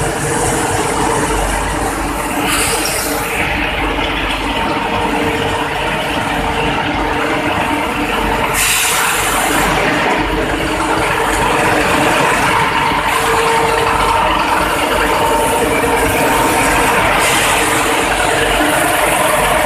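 Hot-rolling steel mill running: the roll stands and their drives make a loud, unbroken machine din with a steady hum, with a hiss of cooling water spraying on the red-hot bar that swells several times.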